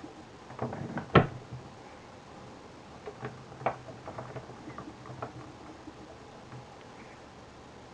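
Small clicks and taps from a small screwdriver and the plastic camera body being handled while screws are worked out. The loudest is a single sharp click about a second in, followed by lighter scattered ticks.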